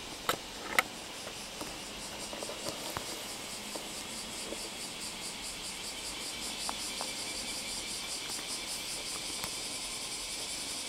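Kitten gnawing and pawing at a camera strap right against the microphone: scattered small clicks and rubbing, with two sharper clicks about a second in. From about four seconds on a fast, even high-pitched pulsing runs underneath.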